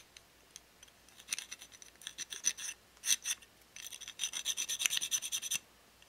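Needle file rasping on a white metal ammo box casting, filing down molded nubs in its feedway track. The strokes come in short quick runs, with a longer, denser run of strokes about four seconds in.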